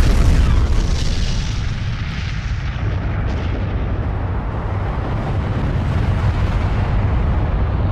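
Explosion sound effect for a nuclear mushroom cloud: a loud, rolling rumble heavy in the deep bass, the aftermath of a blast that hit just before, dipping slightly and then swelling again toward the end.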